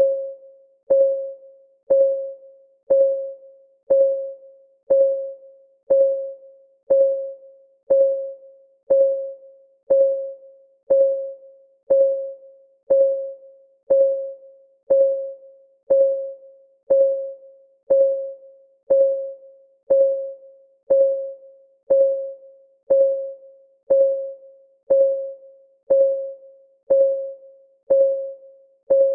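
Countdown timer's clock-ticking sound effect: a short, pitched tick once every second, each ringing briefly and fading before the next.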